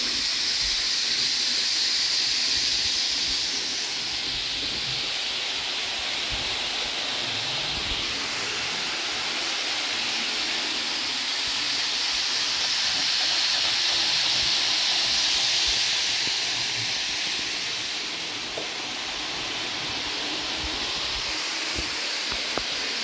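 H0-scale model trains running flat out on the layout's main line, their sound modules switched off: a steady rolling hiss of wheels on rails and motor whir. It swells twice as the trains come nearer.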